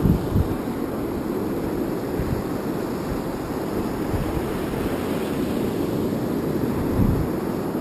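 Wind rumbling on a GoPro Hero 2's microphone over the wash of breaking surf, steady throughout, with a few louder low thumps near the start and about seven seconds in.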